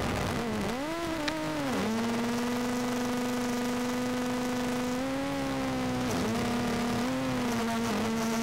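A motor running with a steady, pitched hum. Its pitch dips and swings back up about a second in, then holds steady with small wavers.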